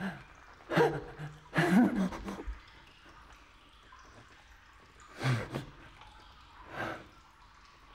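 A man gasping and sighing in short breathy bursts: two louder ones in the first two and a half seconds, then two fainter ones later.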